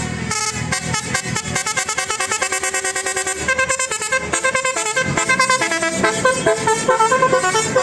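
Indonesian bus telolet horn of the Basuri type, a multi-note musical air horn, playing a fast melody of short notes that jump quickly from pitch to pitch and pulse several times a second.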